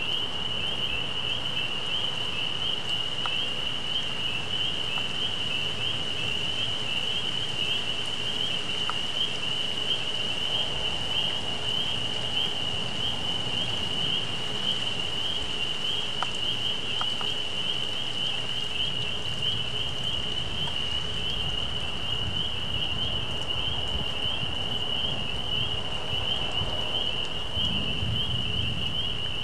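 A steady, high-pitched chorus of calling animals runs on without a break over a faint hiss. A low rumble swells briefly near the end.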